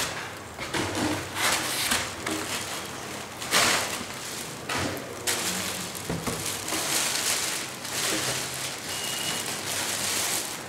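Clear plastic bag crinkling and rustling in repeated bursts as it is handled around the scanner it wraps.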